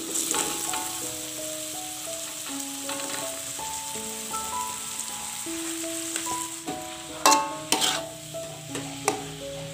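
Genjer (yellow velvetleaf) leaves sizzling in hot oil in a wok, stirred with a metal spatula that scrapes the pan and knocks against it sharply three times near the end. Soft background music with held notes plays underneath.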